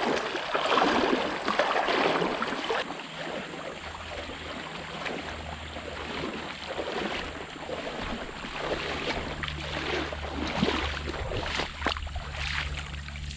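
A person wading through a shallow river, the water splashing around the legs with each stride: loud close splashing for the first few seconds, then softer sloshing steps that come nearer toward the end.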